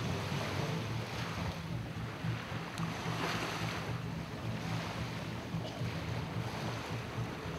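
Outboard motor of an inflatable rubber boat running steadily, a low hum, with wind noise on the microphone.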